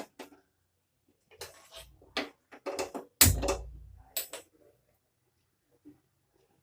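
Kitchen utensils being handled: a scatter of clicks and knocks, with one louder, deeper thud about three seconds in, like a pot or cup set down.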